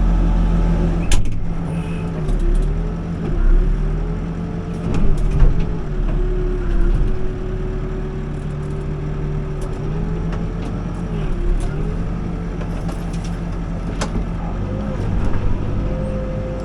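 Backhoe loader's diesel engine running under hydraulic load, its note dipping and recovering several times as the backhoe works. A few sharp knocks come through as the bucket meets concrete, the loudest about a second in and another near the end.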